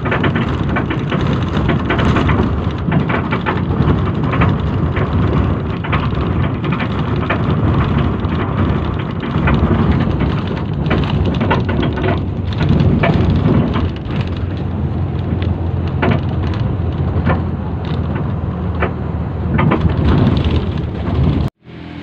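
Loud rush of wind and road noise from a moving vehicle, with wind buffeting the microphone in irregular gusts and a deep rumble. It cuts off abruptly near the end.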